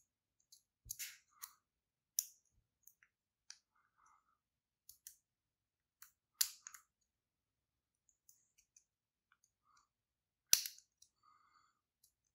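A lock pick and tension wrench work the pins of an American Lock 1100 padlock, making scattered small clicks and scrapes. A sharper, louder click comes near the end.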